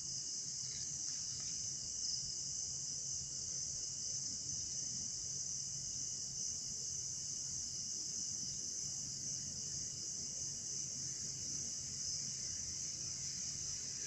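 Steady, high-pitched chorus of night insects, with a fainter, lower continuous tone under it.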